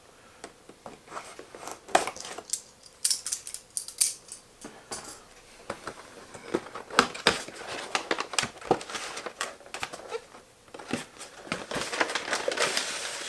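A small cardboard packaging box being opened and handled: a run of sharp clicks and scrapes of cardboard, with packaging crinkling more densely near the end.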